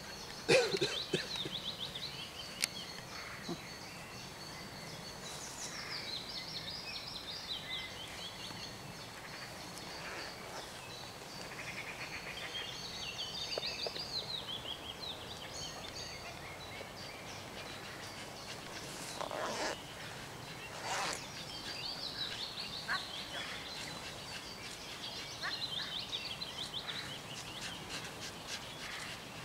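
Small wild birds singing and chirping, with short repeated high chirps throughout. There are a few sharp knocks in the first second or so and two brief rustling noises about two-thirds of the way through.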